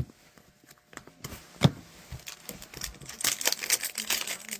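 Trading card pack wrapper crinkling and rustling as the pack is handled and opened, with a single knock about a second and a half in; the crinkling builds over the last second and a half.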